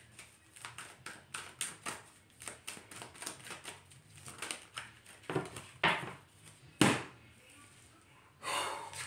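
A deck of cards shuffled by hand: a run of quick, light card clicks, then a few sharper snaps a little past the middle and a brief rustle near the end.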